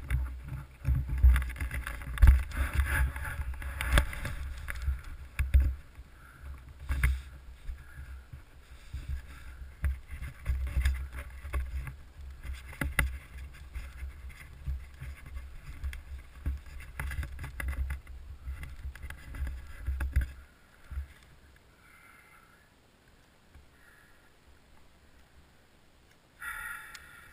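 Muffled low rumble with frequent knocks heard through a helmet camera's case on a Yamaha YZ250F dirt bike ride over a rocky trail. About twenty seconds in it drops to faint, and a short louder sound comes near the end.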